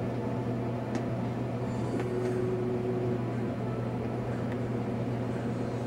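A steady low hum with a few faint clicks and a brief higher tone about two seconds in.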